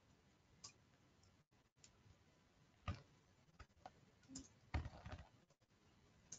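Faint, scattered clicks of a computer keyboard and mouse during code editing, about a dozen isolated taps with a small cluster about five seconds in, over near silence.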